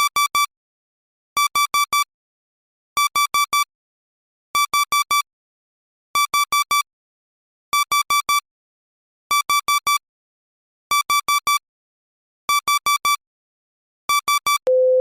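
Emergency alert beeps: groups of four short, buzzy high beeps repeating about every second and a half. A steady lower tone starts just before the end.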